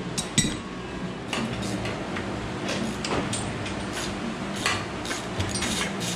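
Ratchet and wrench clicking and clinking on the carburetor's hold-down nuts as the carburetor is unbolted from the engine, with irregular sharp metal taps over a low steady hum.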